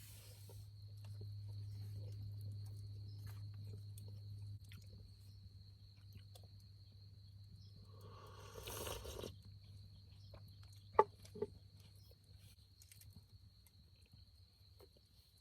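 A cricket trills steadily and high-pitched over a faint low hum. There is a short rustle about nine seconds in, and two sharp knocks in quick succession about eleven seconds in.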